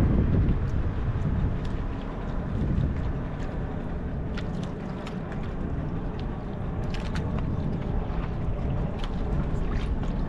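Steady low rumble of a fishing boat at sea, with faint scattered clicks.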